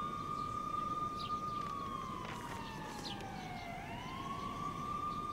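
Emergency vehicle siren wailing: a long tone that slowly falls in pitch, then rises again a little under four seconds in.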